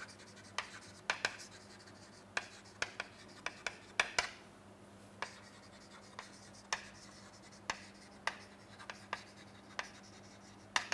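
Chalk writing on a chalkboard: irregular sharp taps and short scratches as each letter is struck and drawn.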